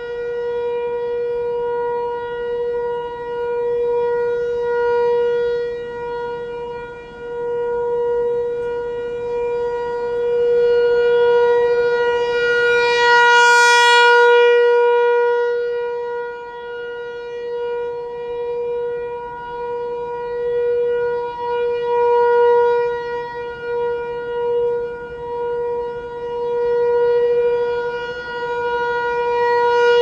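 ASC T-128 rotating tornado siren sounding its steady Alert signal: one held tone that does not change pitch, swelling and fading as the turning horn sweeps past. It is loudest and brightest about halfway through and again near the end, as the horn faces toward the listener.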